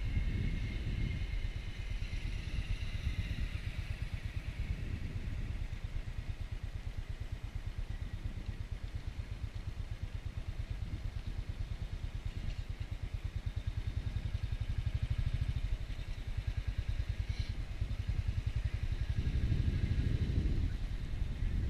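Motorcycle engine running steadily at highway speed, a continuous low rumble that swells somewhat near the end.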